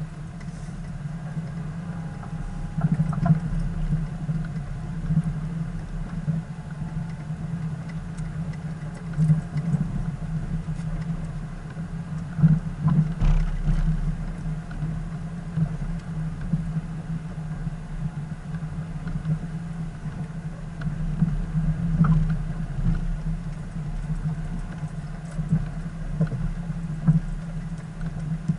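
Car engine running steadily as the vehicle drives slowly across sand, a low hum with a few brief knocks and rattles from bumps along the way.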